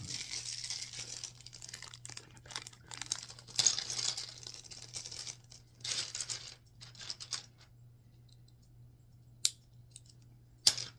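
Lego pieces and their plastic packaging being handled: rustling and crinkling with small clatters for about seven seconds, then two sharp clicks near the end.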